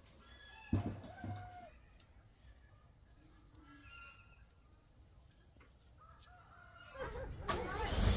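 A rooster crowing and chickens clucking, then a diesel cargo truck's engine coming in loud near the end as it pulls into the yard.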